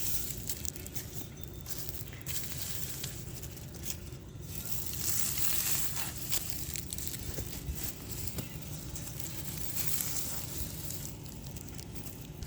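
Rustling and crunching of onion plants, their leaves and stalks handled and crushed during harvesting, with scattered small crackles.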